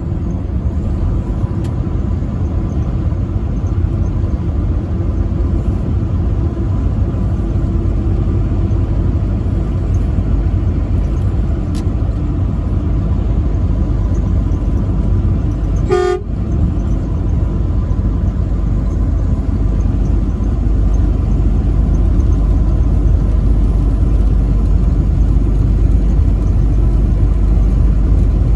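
Steady low road and engine rumble of a truck driving on the highway, with one short horn toot a little past halfway through.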